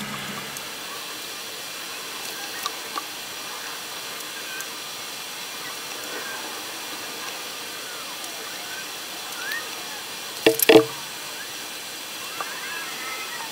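Steady background hiss, with a brief sharp clatter about ten and a half seconds in.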